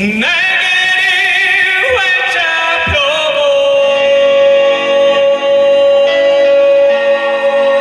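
Loud music over the stage PA starts abruptly, with a wavering, sung-sounding high line for the first few seconds. It then settles into one long, steady held note through the rest.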